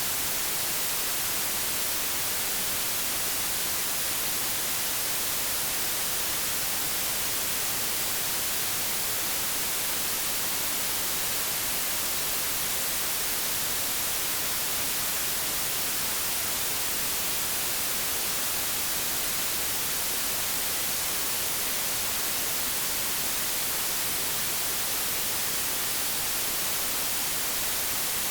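Steady synthetic white noise test signal, an even hiss at a constant level with no change or events.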